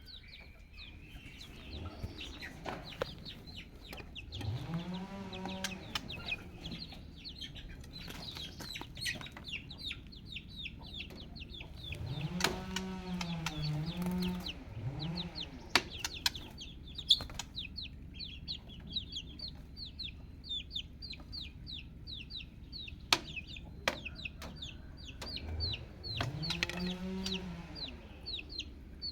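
Chicks peeping in a steady stream of short high cheeps, with a deeper drawn-out call rising and falling three times and scattered sharp clicks.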